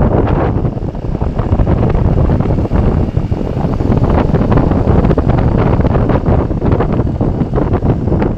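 Loud wind buffeting the microphone, a rough, fluctuating low rumble.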